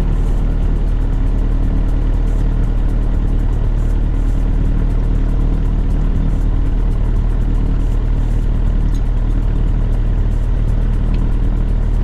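1966 Mooney M20C's four-cylinder Lycoming engine and propeller running steadily at low power on the ground, shortly after start-up, heard loud inside the cabin.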